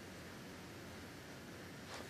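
Faint steady hiss of recording noise, with one brief soft rustle near the end as a hand sweeps down over loose LEGO pieces on carpet.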